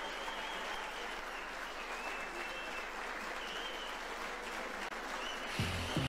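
Audience applauding steadily, with faint wavering whistles over it and a brief low thump near the end.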